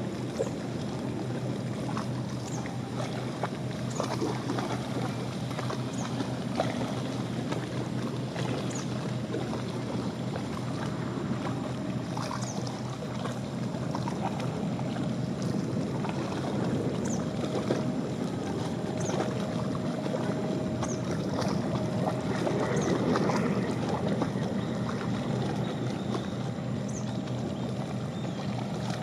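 Steady outdoor rain and wind noise. A faint steady whine comes in partway through, and the noise swells slightly near the end.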